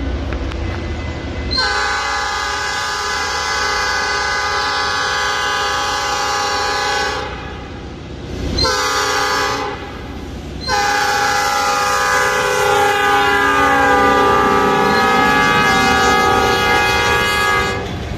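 EMD GP38 diesel locomotive's horn sounding the road-crossing warning: a long blast, a short one and another long one. Underneath is the train's rumble, with wheels clattering on the rails as covered hopper cars roll past near the end.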